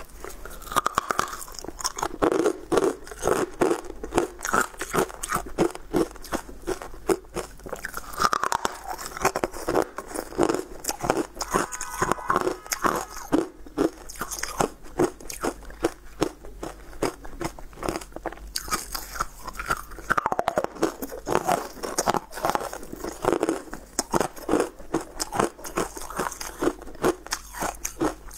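Pieces of white, frosty ice being bitten and chewed close to the microphone: a dense, continuous run of crunches and crackles.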